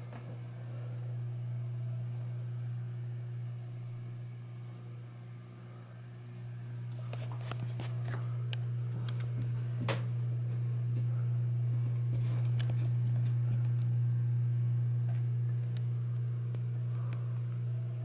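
Ceiling fan running, its motor giving a steady low hum, with a few light clicks and ticks about halfway through.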